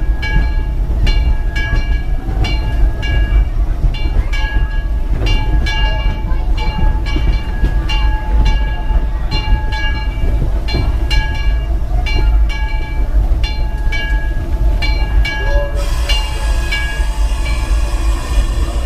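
Steam locomotive bell ringing over and over, roughly one to two strokes a second, over the locomotive's steady rumble heard from the cab as the train comes into a station. A loud hiss starts near the end.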